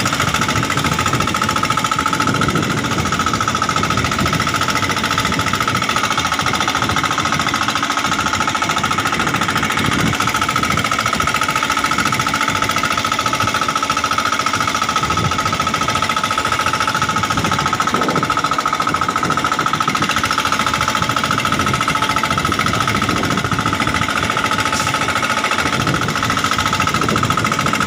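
Small fishing boat's engine running steadily with a fast, even pounding, and water splashing and churning at the hull as a net is pulled up alongside.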